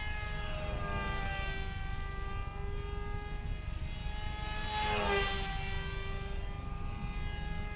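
Whine of the electric motor and pusher propeller on a small RC F-22 model in flight. Its pitch drifts as the plane manoeuvres, and it swells and drops in pitch as the plane passes close about five seconds in.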